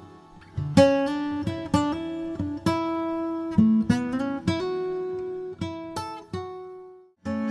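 Background music of plucked acoustic guitar, single notes in a gentle melody; near the end a long note rings out and dies away, then the playing resumes after a brief pause.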